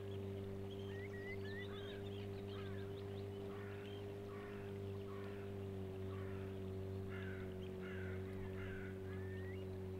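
Outboard motor running at a steady speed, with birds calling over it in short chirps and a few rising calls.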